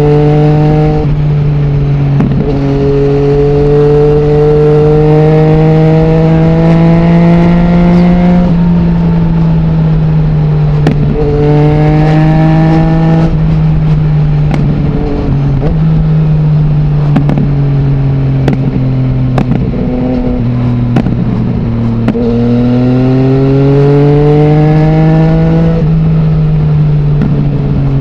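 Yamaha MT-09's three-cylinder engine through an Akrapovic full-system exhaust with the dB killer removed, pulling gently under way. Its pitch climbs in three long, gradual rises and drops back between them.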